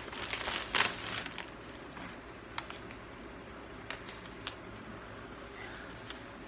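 Gift packaging being handled and opened: a rustle and crinkle in the first second with one sharp crackle, then scattered light clicks and taps.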